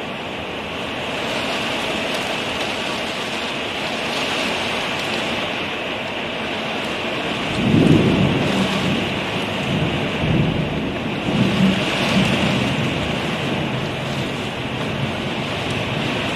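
Torrential rain pouring steadily, with thunder breaking in about halfway through: a sudden low rumble that rolls on in swells for several seconds.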